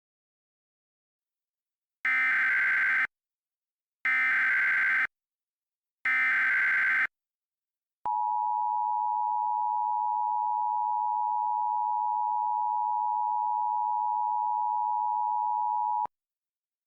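Emergency Alert System tones. First come three one-second bursts of the SAME digital header, a harsh data warble, two seconds apart. Then the two-tone attention signal (853 and 960 Hz) holds steady for about eight seconds and cuts off abruptly.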